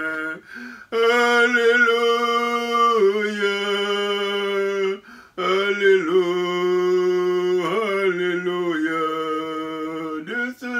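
A man singing unaccompanied into a microphone, slow and chant-like, holding long sustained notes. There are two long phrases with a short break about five seconds in.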